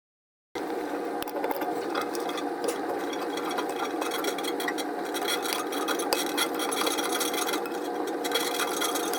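Steady metallic rasping and scraping as a nut is worked off one of the toilet's tank-to-bowl bolts, starting abruptly about half a second in.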